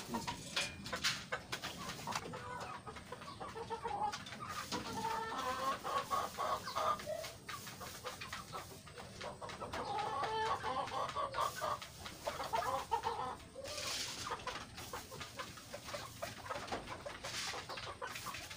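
Chickens clucking while they feed on scattered pellets, in two long stretches, with a few short rustling noises in between.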